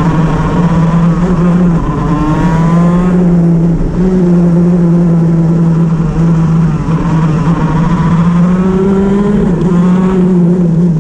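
Shifter kart's two-stroke engine running hard with a misfire. Its upper note climbs and breaks off several times, with brief dips between.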